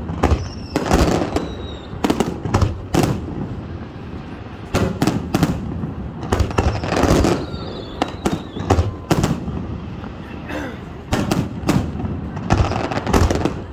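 Aerial fireworks shells bursting in quick, irregular volleys of loud booms and bangs, with crackle between them.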